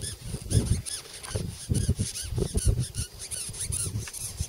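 A beetle squeaking over and over, short high squeaks in quick succession, the sound it makes when disturbed, with low thumps and rustles mixed in.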